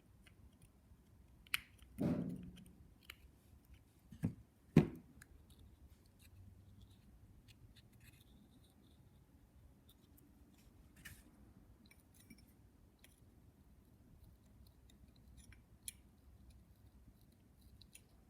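Small tools and parts being handled: a few knocks about two seconds in and again between four and five seconds, the last the loudest, then scattered light clicks.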